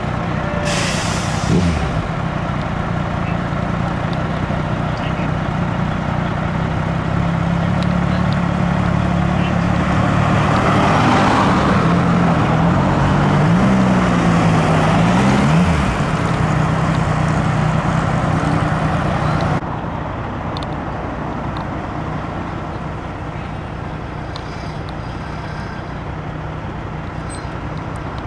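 Emergency vehicles' engines at an accident scene: a steady low engine drone as an ambulance drives up and stops beside an idling fire engine, with a short hiss about a second in and the engine note wavering up and down about 13 to 16 seconds in. About 20 seconds in the drone cuts off abruptly, leaving quieter street traffic.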